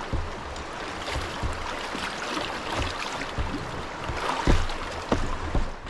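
Swift river current rushing and sloshing around a kayak at the bank, with a few dull knocks about four and a half and five seconds in.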